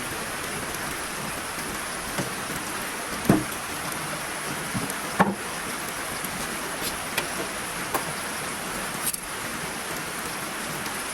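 Heavy rain falling steadily, an even hiss, with a few short sharp knocks, the loudest about a third of the way in and again near the middle.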